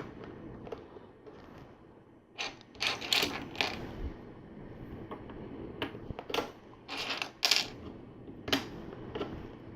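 Small plastic LEGO pieces clicking and clattering as they are picked out and pressed into place: irregular sharp clicks, bunched about two and a half to four seconds in and again from about six to eight and a half seconds in.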